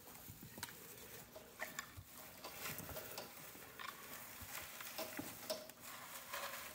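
Guinea pigs munching hay: irregular dry crunching and crackling of the hay as they chew and root through it.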